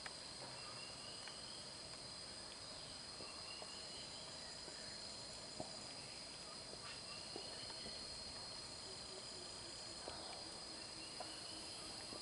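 Faint, steady high-pitched drone of insects in the forest, with a few short faint chirps and scattered small clicks over it.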